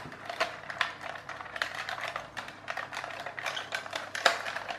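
Irregular plastic clicks and knocks, several a second, as a plastic clockwork toy tractor is handled and turned over, its wheels and body clacking in the hands; one sharper knock about four seconds in.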